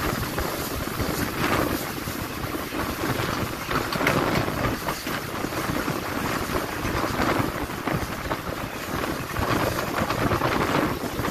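Continuous running noise of a moving train heard on board, with wind buffeting the microphone; the noise swells a little every few seconds.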